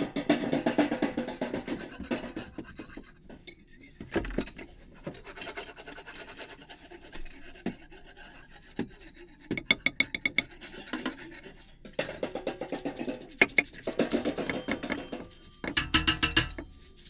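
Hand-made Foley ice-cracking effects: crackling, scraping and clattering of handheld props, over background music. There is a quick run of clicks about ten seconds in, and dense, loud crackling through the last five seconds.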